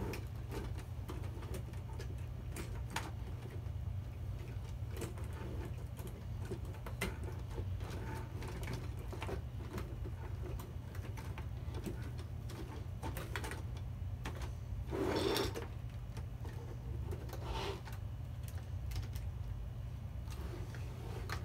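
Plastic Lego train cars being handled and set down on the track: scattered light clicks and knocks over a steady low hum, with one louder brief rustle about fifteen seconds in.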